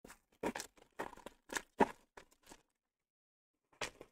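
Foil wrapper of a Topps baseball card pack being torn open and crinkled: a quick run of crackling tears and rustles for about two and a half seconds, the loudest a little under two seconds in, then one more crinkle near the end.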